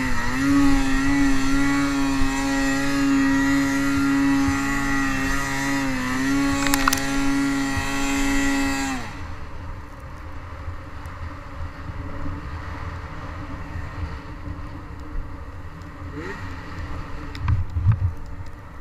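Snowmobile engine running hard at high revs, with a few brief dips in pitch, then about nine seconds in the revs drop off sharply as the throttle is released. After that it runs much quieter, with a couple of short throttle blips near the end.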